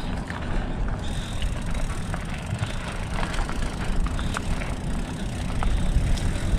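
Hardtail mountain bike rolling along a dirt single-track trail, heard from a chest-mounted camera: a steady low rumble with many scattered clicks and rattles.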